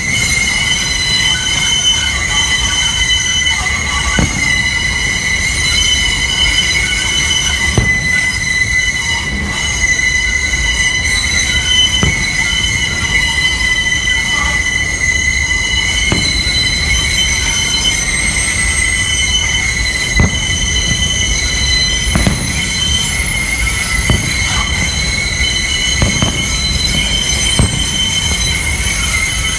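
Rail train wheels squealing, a sustained high screech of several steady tones over a low rumble. Dull firework bangs come every few seconds.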